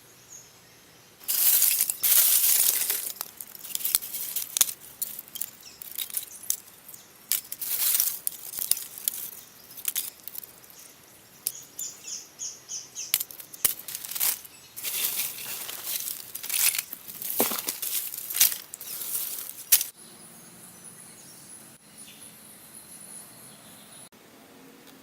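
Irregular scraping and rubbing strokes with a few sharp clicks, as of hand work on a hard material, going on in spurts until they stop about twenty seconds in.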